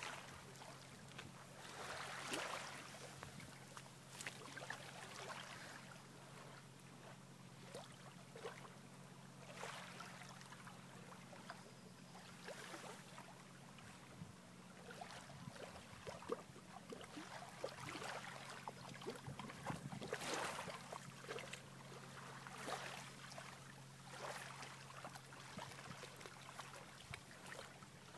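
A dog wading through shallow lake water, its legs making faint, irregular splashing every few seconds. A steady low hum runs underneath.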